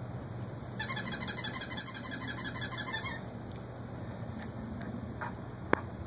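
Squeaky-toy app on a cell phone's speaker squeaking rapidly and repeatedly for about two seconds, starting about a second in. A single sharp click near the end.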